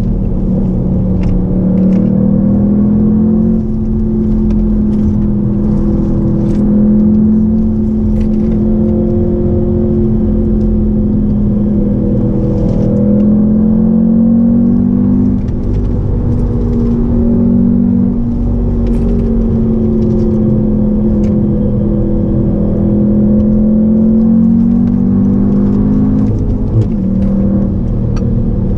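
2016 Audi TTS's turbocharged 2.0-litre four-cylinder engine pulling under steady driving. Its pitch climbs slowly and then drops back several times, as at gear changes of the manual gearbox.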